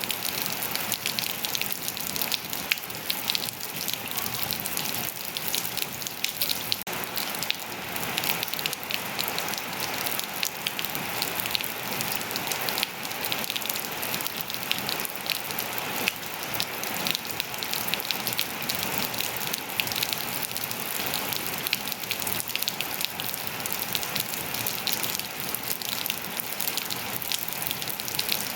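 Steady rain falling, a constant hiss with many small drops pattering on surfaces.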